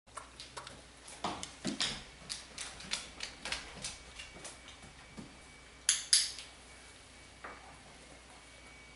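A dog's claws clicking and tapping on a hardwood floor as it trots about, in quick irregular ticks. About six seconds in come two sharp clicks close together.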